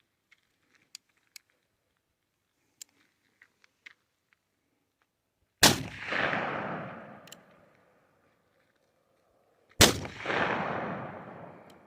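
Two shots from an 1847 Colt Walker .44 caliber black powder percussion revolver loaded with 50 grains of 3F black powder, about four seconds apart, each followed by a long echo dying away over about two seconds. A few faint clicks come before the first shot.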